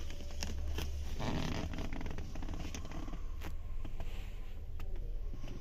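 Rustling and scattered sharp clicks, with a dense crackling patch about a second in, over a steady low hum.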